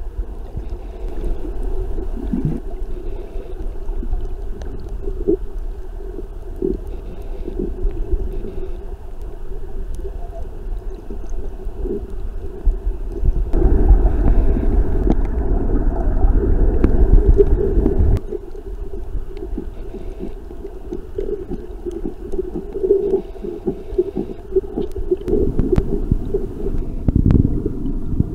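Muffled underwater rumble and gurgling picked up by a camera submerged in its waterproof housing, mostly deep, with a louder stretch of several seconds about halfway through.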